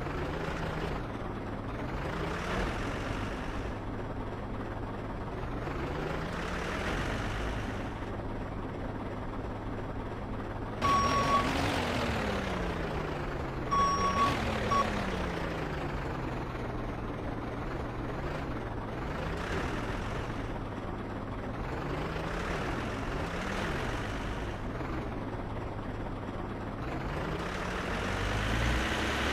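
Heavy vehicle engine running steadily, its pitch rising and falling over and over as it revs up and down, with a few short reversing-style beeps about eleven and fourteen seconds in.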